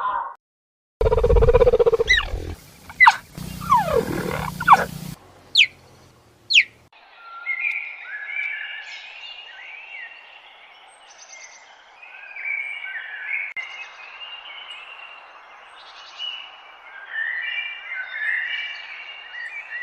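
Wild animal calls: a loud, low roar-like call for about four seconds, two sharp falling whistles, then a long chorus of many birds chirping and chattering over one another.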